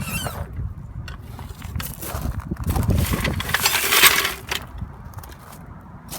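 Metallic clinking and rattling as a car wheel and its lug nuts are put back on. The loudest stretch, a dense run of clicks and scraping, comes about three to four and a half seconds in.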